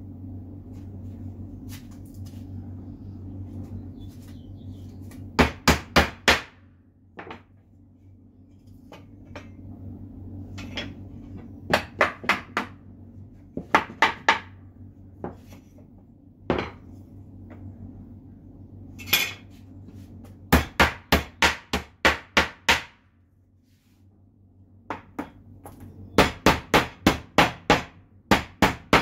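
Claw hammer driving nails by hand into wooden sawhorse boards: runs of quick, even blows, a few short groups of four or five early on and two long runs of about ten strikes in the second half, with a couple of single knocks between.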